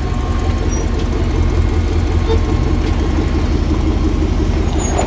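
Engine of an off-road 4x4 running at a steady idle close by, an even low rumble.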